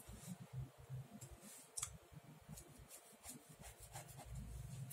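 Faint scratching of a pen drawing short strokes on sketchbook paper, with a few light ticks.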